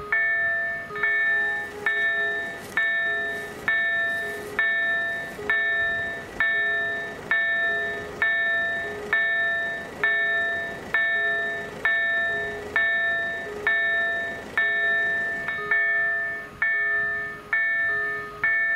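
Electronic level-crossing warning bell (EDG-2004+ sound generator) ringing while the crossing is closed: a bell-like ding struck a little more than once a second, each fading away before the next.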